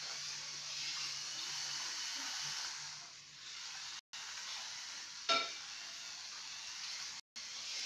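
Small electric toy train running round a loop of track, its motor and wheels making a steady whirring hiss, with a short sharp squeak about five seconds in.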